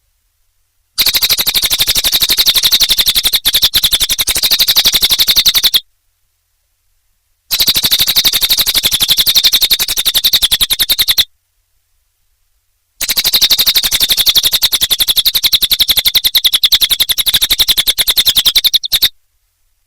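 Cililin songbird singing in three long bouts of rapid, evenly repeated high notes, each bout about four to six seconds long, with short breaks of silence between them.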